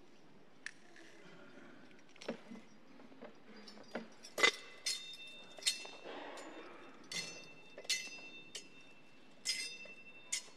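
Metal thurible clinking as its chains and censer knock together while it is swung to incense the Gospel book: a few faint knocks, then from about four seconds in around eight sharp metallic clinks, some in pairs, each with a brief ringing.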